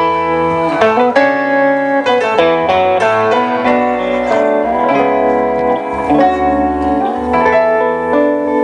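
A live band playing a song's instrumental introduction before the vocals come in, with electric guitars and keyboard.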